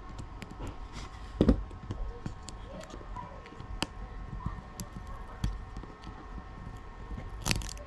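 Small scattered clicks and taps from hands handling an opened tablet and its parts, with a louder knock about a second and a half in and another near the end, over a faint steady hum.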